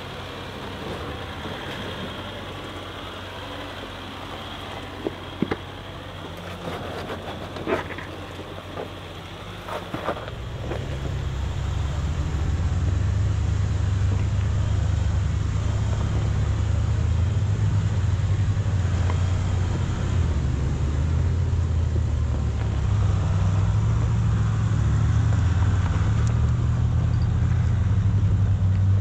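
A Jeep driving off-road: engine and drivetrain rumble with tyre noise. It is quieter at first, with a few sharp knocks and rattles, and becomes a louder, steady low rumble about ten seconds in.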